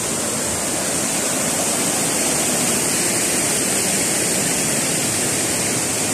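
Steady rush of water tumbling over rocks in a stream of rapids below a waterfall, even and unbroken.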